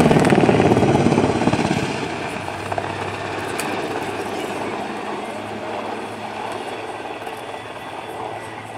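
Helicopter passing low and close: rapid, rhythmic rotor-blade chop, loudest in the first two seconds, then easing into a steadier drone as it moves away.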